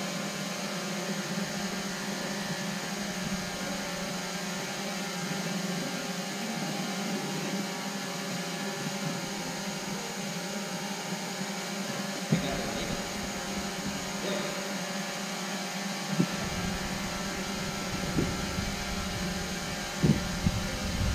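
Steady hiss and hum of a large sports hall, with faint voices in the background. A few sharp knocks sound in the second half, most of them near the end.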